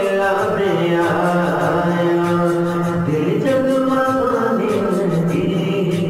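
Devotional vocal music in the style of a naat: voices sing long held, chant-like notes over a layered vocal backing, with light percussive ticks keeping a beat.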